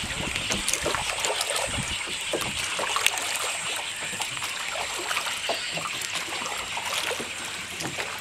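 Water trickling and splashing steadily, with many small splashes and drips.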